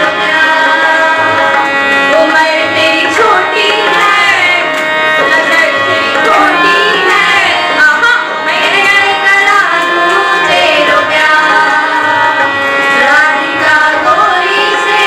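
A group of girls singing a devotional song together to tabla and a steady held accompaniment, through microphones.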